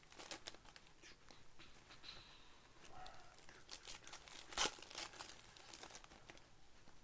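Trading cards and plastic pack wrappers rustling and crinkling as they are handled, with a sharper crackle about four and a half seconds in.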